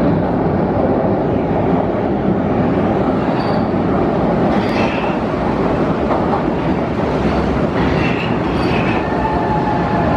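Vienna U-Bahn metro train pulling into an underground station: a loud, steady rumble of the cars rolling along the platform. Short high wheel squeals come around the middle, and a whine sets in near the end as the train slows.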